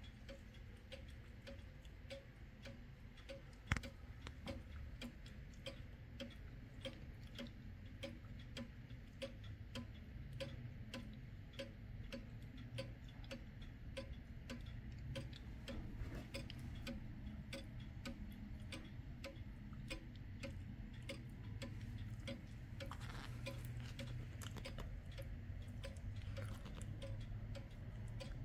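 Pendulum wall clock ticking evenly, its escapement giving a steady run of sharp ticks. A single louder knock comes about four seconds in.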